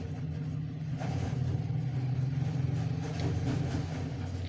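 A steady low mechanical hum, like a motor running nearby, with faint clicks and rustles of food being picked from a styrofoam tray.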